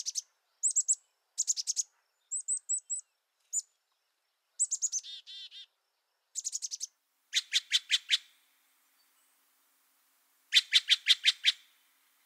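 A songbird singing: a series of short, fast trills of high chirping notes separated by brief pauses, with a longer gap before a final loud trill near the end.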